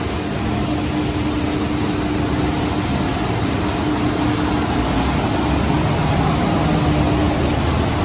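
A coffee dryer used to dry soybeans, running steadily: a continuous even noise with a faint hum that comes and goes.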